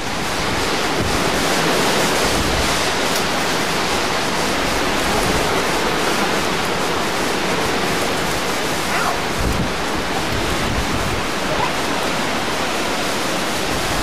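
Strong wind blowing steadily through the trees, with wind rumbling on the microphone.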